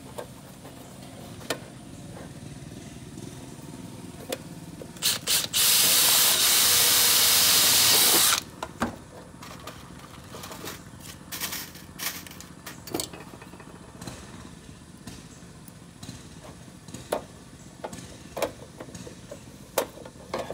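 Makita 18V cordless drill given two short trigger blips, then run steadily for about three seconds, drilling a rivet hole through a gutter end cap. Scattered clicks and knocks of tools being handled follow.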